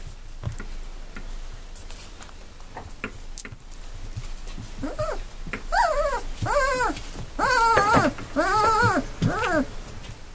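Three-week-old Doberman puppies whining: a run of five or six high cries, each rising and then falling in pitch, starting about halfway through. Soft scuffling comes before them.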